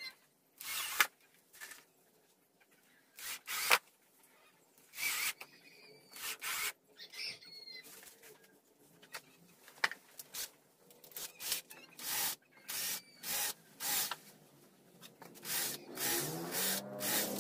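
Cordless drill driving screws into plywood in short bursts, a dozen or more at uneven intervals. Faint bird chirps sound between them, and a bird coos near the end.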